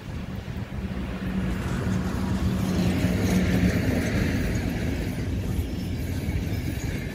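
Train passing, with a steady low hum and running noise that swell to a peak about halfway through and then ease off a little.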